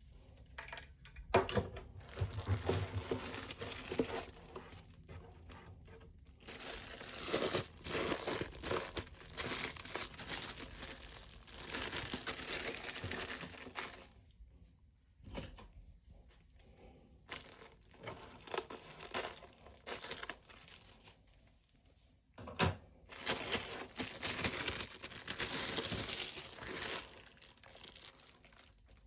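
Crinkly material being handled, rustling and crinkling in several bursts with a few sharp clicks. The longest and loudest stretches come in the middle and again near the end.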